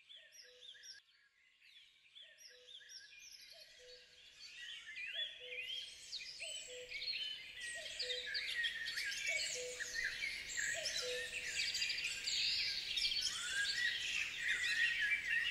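Birdsong: many small birds chirping, faint at first and growing denser and louder, with a low two-note call repeating about every second and a half.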